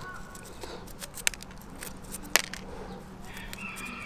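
Ostrich eggshell being picked apart by hand: a few sharp clicks and snaps as fragments break off the rim of the opening, the two loudest about a second and two and a quarter seconds in.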